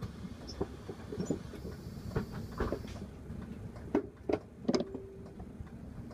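Mercedes city bus standing with its engine idling, a steady low rumble heard from inside the cabin, with scattered sharp clicks and knocks from the bus's fittings.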